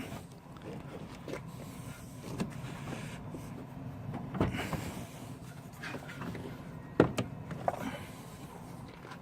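Plastic knocks and scraping as a car headlamp unit is pushed and worked into its opening, with a few sharper knocks about four and a half and seven seconds in, over a steady low hum.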